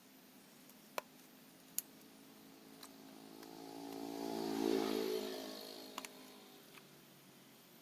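A passing engine swells and fades over about three seconds, loudest about halfway through, with a few sharp clicks of hand work before and after it.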